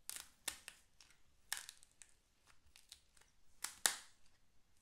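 Slime being squeezed and torn apart by hands, giving faint, irregular crackles and snaps.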